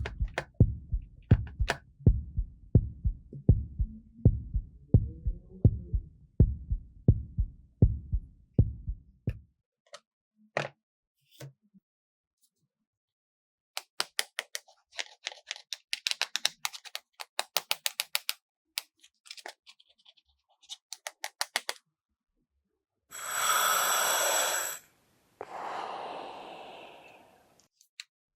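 Toy doctor kit's heartbeat sound effect: steady low thumps, about two a second, for roughly nine seconds. Then a run of sharp plastic clicks and taps, and near the end two short noisy bursts.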